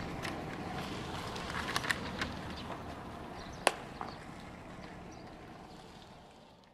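Open-air practice-field background with several sharp pops of baseballs smacking into leather gloves during a game of catch, the loudest a little past the middle. The sound fades out near the end.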